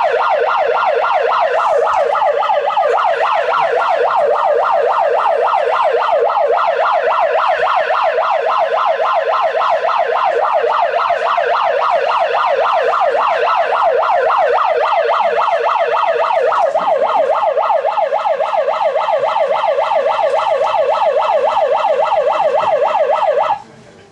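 Megaphone's built-in siren sounding a loud, fast-warbling wail, which cuts off abruptly near the end.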